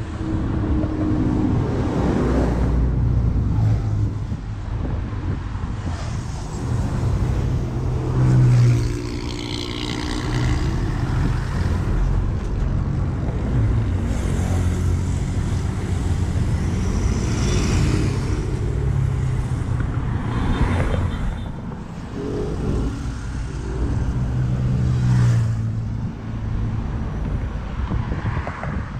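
Busy city avenue traffic: diesel city buses, one an articulated bus close by, running and moving off, with cars passing. The engine sound swells and fades several times as vehicles go by.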